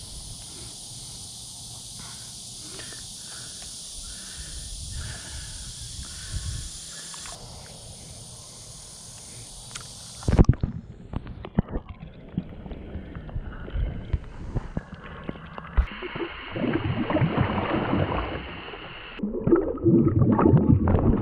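Shallow water sloshing and gurgling around a large largemouth bass being held and released at a grassy pond edge, muffled from about halfway as it is heard at and under the water's surface, with irregular knocks. Near the end comes the loudest, dense splashing as the bass kicks free and swims off.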